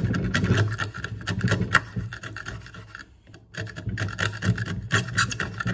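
Wood chisel paring softwood by hand pressure, shaving waste from the floor of a housing joint in a run of short scraping cuts. The cutting breaks off briefly about three seconds in, then resumes.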